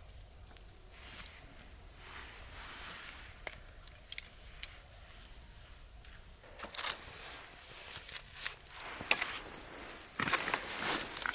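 A few faint scattered clicks, then from about six and a half seconds in, irregular bursts of crinkling, as plastic packaging is handled.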